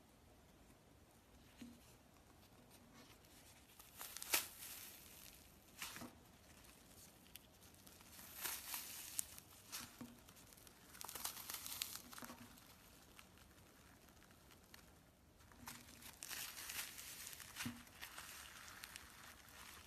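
Thick white fluffy slime being squeezed and pulled apart by hand, giving faint crackling, tearing sounds in separate bursts after a quiet first few seconds.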